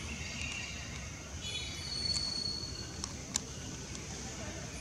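Outdoor background noise with a steady low rumble, a brief high chirping call about two seconds in, and a sharp click a little after three seconds.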